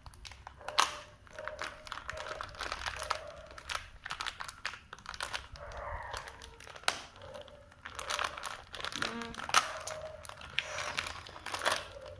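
Plastic packaging crinkling and crackling in irregular bursts as the small packet holding a toy DC motor is handled and opened by hand.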